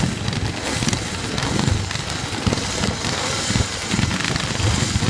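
A pack of classic pre-1974 scrambles motorcycles over 250 cc running together on the start line, their engines revved in uneven, overlapping surges as they wait for the start.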